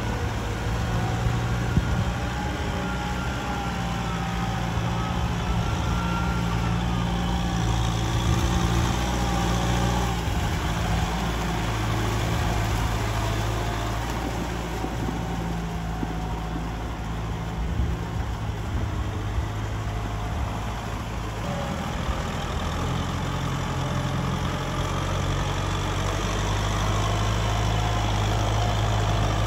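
Medium farm tractor's diesel engine running steadily under load while its rear rotary tiller churns wet paddy mud. The engine note shifts a little in pitch now and then, with a faint whine above it.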